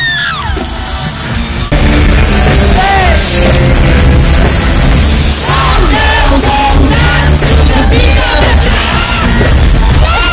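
Loud live pop-rock concert music with a singer and heavy bass, heard from among the crowd, with fans yelling and whooping over it. The sound jumps suddenly louder about two seconds in.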